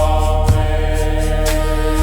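Meditation music: Tibetan bell tones ringing and sustained over a low steady drone, with a soft strike about once a second, twice here.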